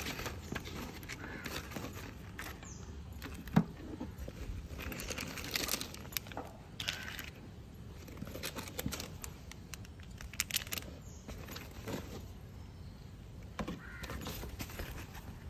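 Rustling and small clicks of a stationery craft kit being unpacked and handled, with one sharp knock about three and a half seconds in.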